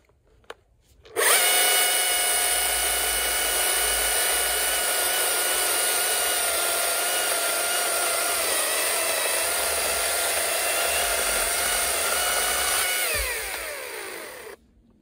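Husqvarna battery chainsaw, powered by a BLi200X battery, starting abruptly about a second in and cutting through a log with a steady high electric whine of motor and chain, the pitch sagging slightly under load. A low thump near the end, then the whine winds down in pitch and stops.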